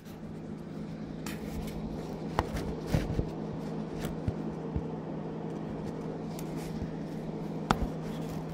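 AC TIG welding arc on aluminium, a steady buzz, with a few sharp clicks.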